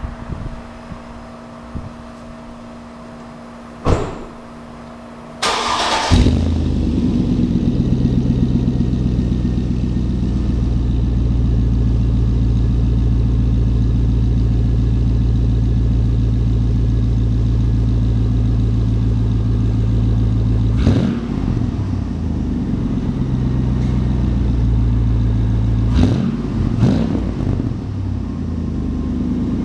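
2001 Chevy Tahoe's V8 cold-starting inside a garage, heard through a custom single exhaust with a Magnaflow glasspack muffler: a click, a short crank about five seconds in, then the engine catches and idles steadily. It is revved briefly once past the middle and twice in quick succession near the end.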